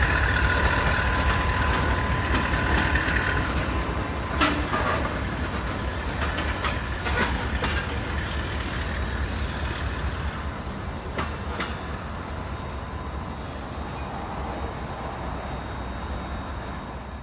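Norfolk Southern diesel freight train passing: a heavy low rumble with a steady higher whine for the first few seconds, then spaced pairs of sharp clicks as the cars' wheels cross rail joints, the whole sound slowly fading.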